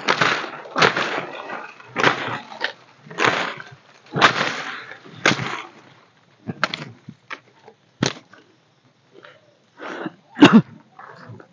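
Undergrowth being cleared with a machete: about six swishing slashes through wet vegetation, roughly one a second, then scattered snaps and cracks of stems and twigs, with one sharp crack near the end.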